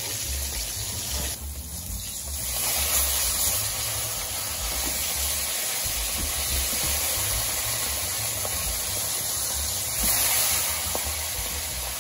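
Atlantic mackerel fillets sizzling in hot cooking oil in a frying pan: a steady hiss that swells briefly about three seconds in and again about ten seconds in.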